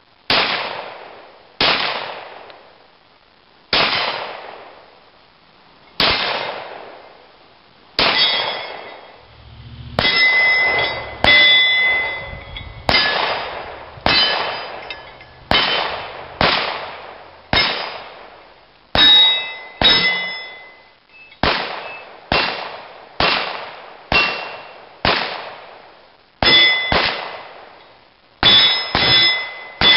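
Steady string of 9mm Glock 17 pistol shots, each followed by the clang and ring of a steel target being hit. The shots come about two seconds apart at first, then quicken to more than one a second.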